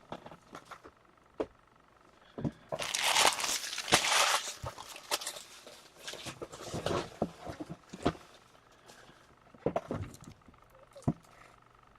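Plastic and card packaging being torn open and handled: a loud crinkling rip about two and a half seconds in, then scattered taps and clicks.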